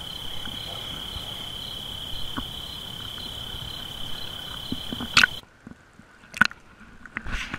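Action camera at the sea surface with water washing and slapping against its housing, under a steady high thin buzz. About five seconds in there is a sharp splash and the sound turns suddenly muffled as the camera dips under the water, followed by a couple of sharp knocks.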